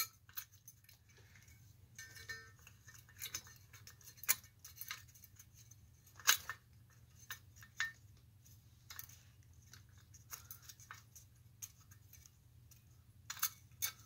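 Scattered small metallic clicks and clinks of a lamp socket's parts being fitted into a nickel-plated metal lamp shade by hand. There is a brief metallic ring about two seconds in and a few sharper clicks, all over a steady low hum.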